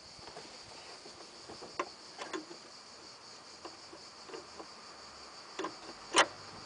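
A handful of short clicks and knocks from hands working at the fan coupling and belt in an engine bay, the loudest near the end, over a steady high-pitched insect trill.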